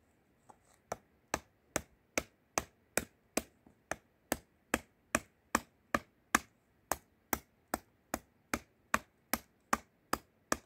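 Small hatchet chopping into a wooden spoon blank held on a wooden chopping block: about two dozen sharp, even blows, roughly two and a half a second, starting about a second in.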